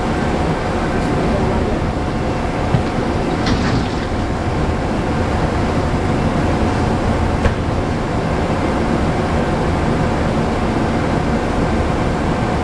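Steady mechanical rumble of rail equipment as Auto Train car transporters roll slowly toward the coupling, with a couple of small clicks.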